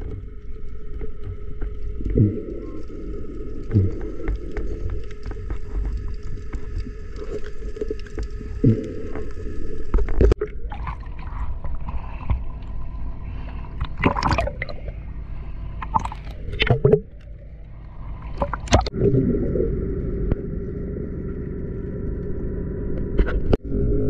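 Muffled underwater sound through a diver's camera housing: a steady low rush of water with a faint steady hum, broken by sharp knocks every few seconds as the gear is handled.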